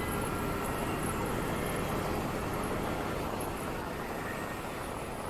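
Steady road noise of a motorcycle riding slowly in city traffic: the bike's engine running, with surrounding vehicles, as an even rumble and hiss.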